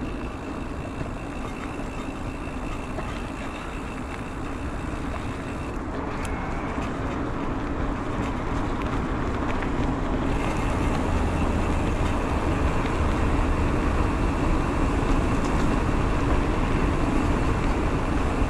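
Continuous rumbling noise of an electric mountain bike being ridden: tyres rolling and wind on the microphone, with a faint steady high whine, growing louder about halfway through.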